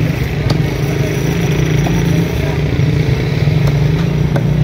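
Steady low engine drone, with a few sharp knocks about a second apart from a cleaver chopping fish on a wooden block.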